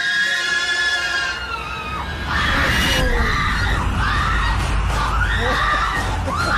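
People screaming in fright: long, high shrieks, loudest from about two seconds in, over a low rumble underneath.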